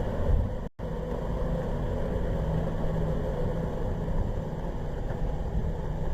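Peugeot 307 2.0 engine running steadily, breathing through an aftermarket Simota air filter. The sound cuts out for a moment under a second in.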